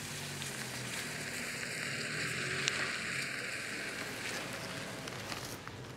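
Hiss of vehicle tyres on a wet, slushy road, swelling to its loudest around the middle and then fading, with one sharp click partway through.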